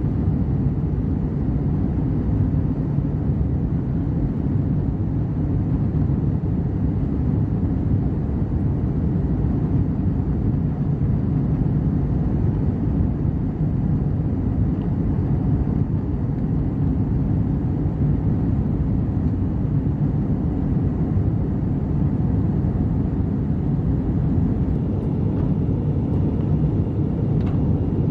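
Steady low drone of an Airbus A321's jet engines and airflow heard inside the passenger cabin as the airliner climbs after takeoff.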